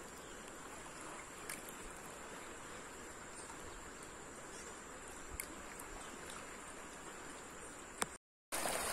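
Faint steady rush of a river flowing past a rocky bank, with a thin high steady tone above it and a few light clicks.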